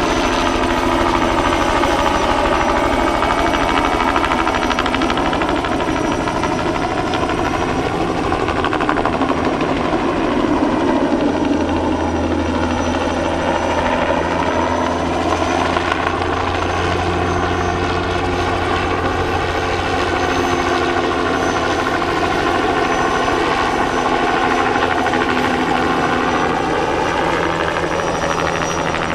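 Bell 206B-3 JetRanger III helicopter flying, its rotor and turbine running loud and steady. The pitch of its sound slides down and back up a few times as it moves about.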